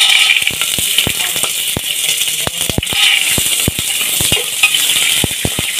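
Soaked chickpeas sizzling loudly in hot oil with fried onions, the hiss starting suddenly as they go in. A metal spatula stirs them in an aluminium pressure cooker, giving many sharp clicks and scrapes.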